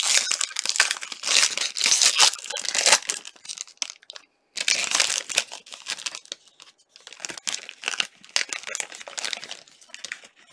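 Foil wrapper of a 2017-18 SP Game Used hockey card pack being torn open and crinkled by hand, in rustling bursts with a brief pause about four seconds in.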